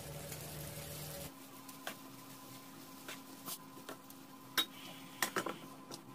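A steady hum cuts off about a second in. After it, a wooden spoon knocks and scrapes in a nonstick frying pan of meat and vegetables, and a metal pan lid clatters into place near the end.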